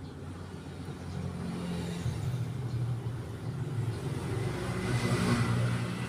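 A motor running with a low, steady hum that grows louder, peaks about five seconds in and then eases slightly.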